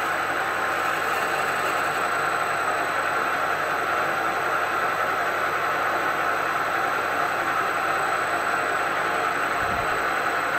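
CNC milling machine drilling into an induction-hardened lathe bedway: a steady machine hiss from the running spindle and the cutting drill, with a thin high whine above it. A brief low thump near the end.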